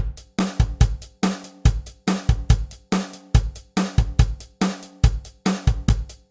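Programmed drum-kit beat from a drum pedal: kick, snare, hi-hat and cymbal playing a steady groove.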